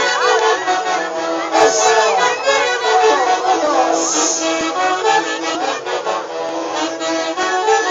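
Loud live traditional Andean band music, with several melodic instruments playing together.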